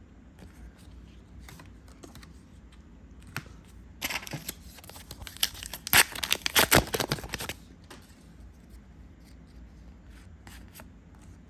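A foil booster pack wrapper being torn open by hand: a crinkly tearing and crackling about four seconds in, lasting some three seconds, with a few faint taps before it.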